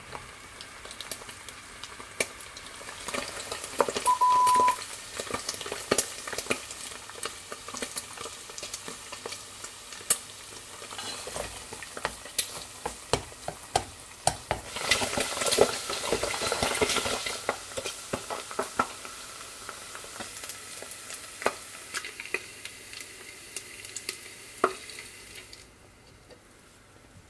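Diced pork fat sizzling and crackling in hot fat as it renders into lard in a small deep-fry pot, stirred now and then with chopsticks. A short steady beep comes about four seconds in. Near the end the sizzling dies away, the sign that the lard is done.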